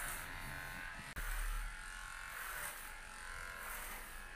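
Corded electric pet clipper fitted with a guide comb, buzzing steadily as it is pushed down through a poodle's curly coat, with a brief break about a second in.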